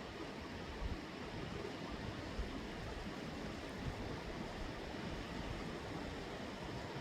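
Steady rushing of a fast mountain river, an even wash of water noise.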